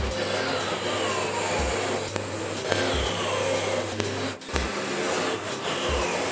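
Horizontal metal-cutting band saw running, its electric motor humming steadily as the blade cuts through steel bar stock.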